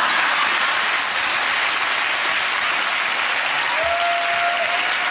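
Studio audience applauding steadily for several seconds.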